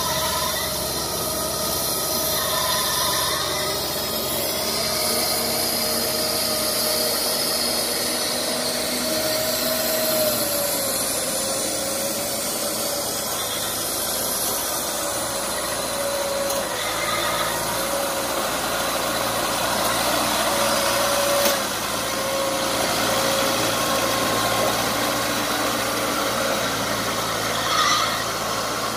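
Small diesel engine of a cage-wheeled paddy tractor running steadily as it works through flooded mud, with a high, slightly wavering squeal running through the sound. Two short knocks stand out, one about three-quarters of the way in and one near the end.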